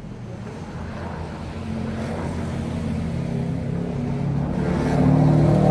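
A motor vehicle engine running with a low hum that grows steadily louder, loudest near the end.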